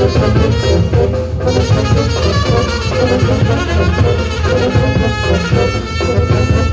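Balkan Roma brass band playing live: trumpets, saxophones and tenor horns over tuba and drums. About five seconds in the horns settle on a long held note.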